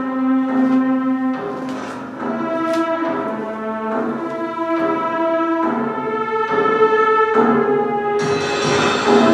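Orchestral music played back through home-built PVC pipe speakers, heard with the reverberation of a large room, notes changing about every half second and the full orchestra with brass swelling in near the end.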